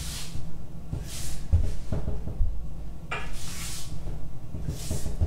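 Sneakered feet stepping back and forth on a wooden floor during supported reverse lunges: soft thuds and creaks, with a sharper creak about three seconds in. A short soft hiss comes about every second and a half.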